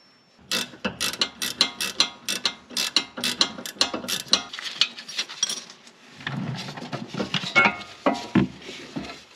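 Hand ratchet wrench clicking as it is worked back and forth, about four or five clicks a second. About six seconds in comes a rougher, denser run of clicking and knocking.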